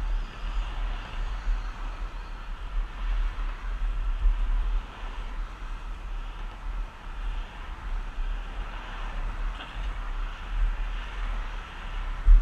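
Wind buffeting the microphone of a camera moving along a paved path, over a steady rolling hiss of wheels on asphalt and cars passing on the adjacent road. A sharp knock right at the end.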